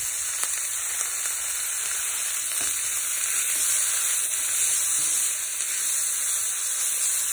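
Kelp noodles and onions frying in oil in a pan: a steady sizzle, with a few faint clicks.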